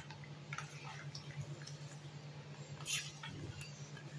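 A steel spoon stirring a thin batter of gram flour and buttermilk in a steel bowl, with wet stirring and a few short clicks of the spoon against the bowl, the loudest about three seconds in. The flour is being worked in so that no lumps form. A steady low hum runs underneath.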